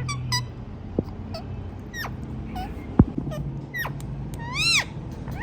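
Indian ringneck parakeet calling: a few short downward-sweeping squeaks, then near the end a louder rising-and-falling call like a mimicked cat's meow. A sharp click about three seconds in.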